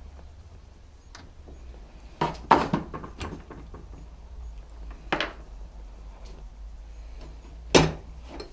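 Workshop clatter: several sharp knocks and clinks of hard objects being handled and set down, a cluster a little over two seconds in, another around five seconds and the loudest near the end, over a low steady hum.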